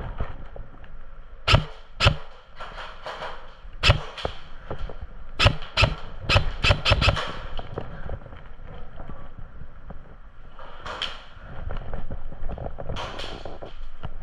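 Airsoft guns firing single shots, sharp cracks at irregular intervals with a quick run of several about six seconds in, between stretches of rustling movement.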